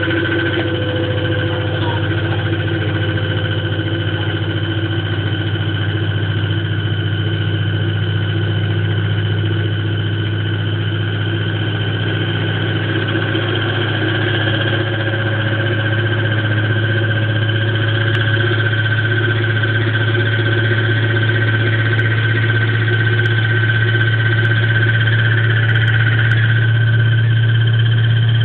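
Electrolux washing machine running its spin cycle, making an abnormal noise: a steady loud low hum with high-pitched whining tones above it, growing slightly louder in the second half.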